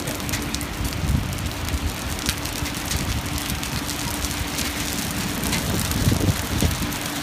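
Storm rain coming down with many sharp ticks of drops striking hard surfaces, while gusts of wind buffet the microphone, strongest about a second in and again near six seconds, over a steady low hum.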